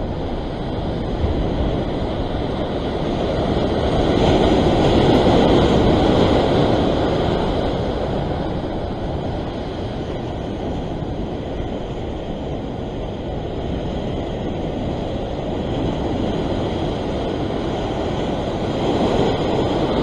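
Sea surf surging and foaming against the rock ledge, a continuous rushing wash that swells louder about four to seven seconds in and again near the end, with wind rumbling on the microphone.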